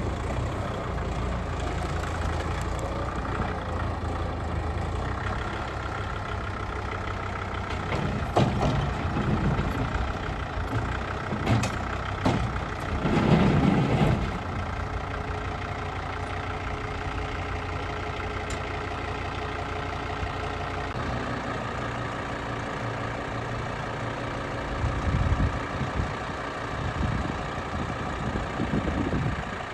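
Kubota L5450 tractor's diesel engine running steadily, with a few louder surges and knocks, the biggest about thirteen seconds in.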